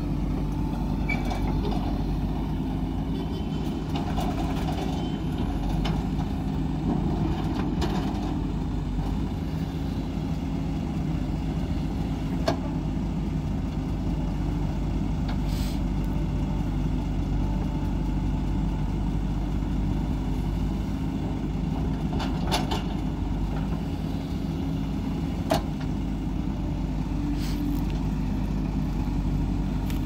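JCB backhoe loader's diesel engine running steadily while the backhoe arm digs and swings loads of soil, with a few sharp metallic clanks from the bucket and arm linkage.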